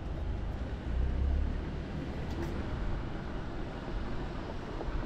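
Street ambience of traffic: a steady low rumble under a haze of noise, swelling briefly about a second in.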